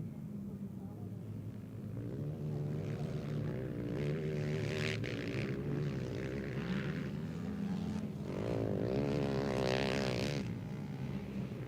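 Racing quad-bike (ATV) engines running hard on a motocross track, revving up and down with the throttle; one comes louder past the microphone about eight to ten seconds in, then fades.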